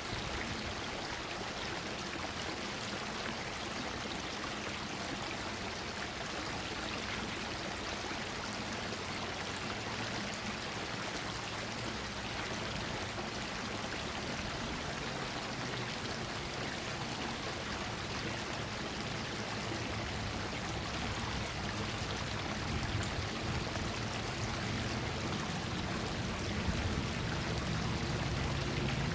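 Stream water flowing steadily over rocks in an even rush, with a low rumble rising beneath it in the last few seconds.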